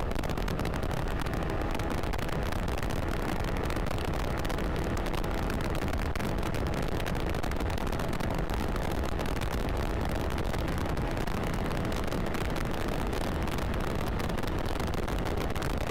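Steady wind rush on the microphone of a scooter ridden at speed, with the Kymco KRV 180 TCS's engine running evenly underneath.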